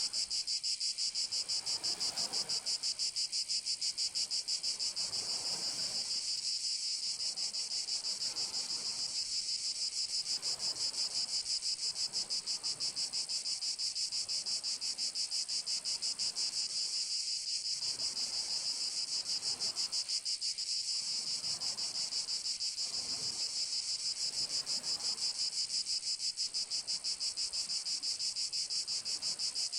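Chorus of cicadas buzzing continuously in summer heat: a steady, high, rapidly pulsing drone.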